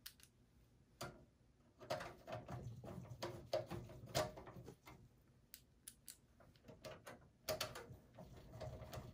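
A hand screwdriver driving a power-supply mounting screw into a steel computer case: faint clicking and scraping of the screw and the driver tip on metal. It comes in two spells, about two seconds in and again near the end.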